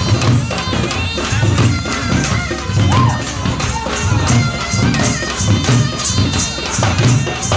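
Traditional Indian folk music: drums keep a steady beat about twice a second under sharp percussion strokes, with a wavering melody line above.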